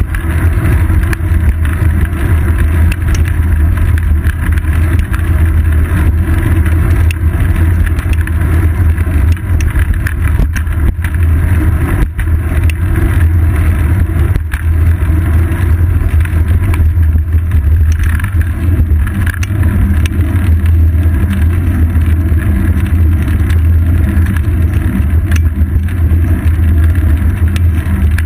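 Steady loud rumble of road vibration and wind picked up by a GoPro Hero 2 mounted on a bicycle's seat post while riding, with most of the sound a low drone.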